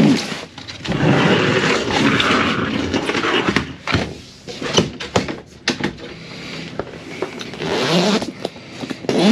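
Gear being shifted around on a pontoon boat deck: fabric rustling and objects scraping, with scattered knocks and clicks. Near the end comes a rasp as the zipper on the vinyl boat enclosure is pulled.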